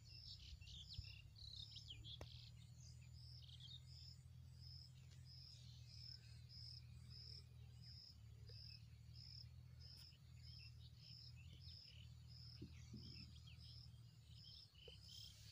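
Faint cricket chirping steadily, about two short high chirps a second, over a low steady hum.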